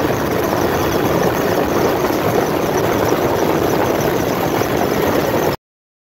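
Steady aircraft engine noise heard from inside the cabin. It cuts off abruptly near the end.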